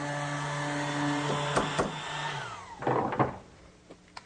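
A small electric power tool's motor hums steadily, then is switched off and winds down about two and a half seconds in. A hammer strikes a nail set in a few sharp taps, setting the nails in the wooden face frame.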